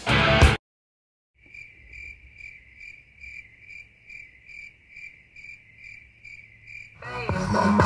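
Guitar music cuts off sharply, and after a second of silence a cricket chirps steadily, about two to three short chirps a second at one high pitch. Music with a beat comes in loudly about a second before the end.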